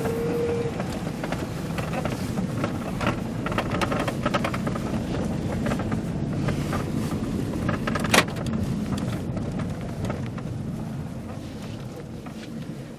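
Steady vehicle running noise with a low rumble, scattered clicks and one sharp knock about eight seconds in.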